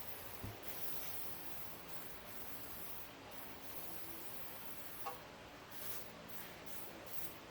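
Faint hissing and rubbing as a grinder part is cleaned and wiped down, with short hissy strokes in the last couple of seconds. A light knock comes about half a second in and a small click about five seconds in.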